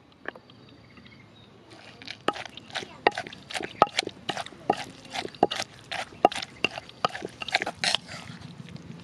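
Wooden pestle pounding chilies, shallots and toasted seeds in a mortar: a quick, irregular run of knocks, about four a second, starting about two seconds in and stopping near the end.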